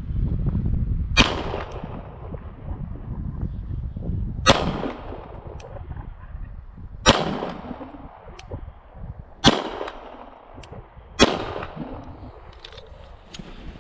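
Tristar C100 9mm pistol, a CZ75 clone, firing five single shots spaced two to three seconds apart, each sharp crack trailing off in a short echo.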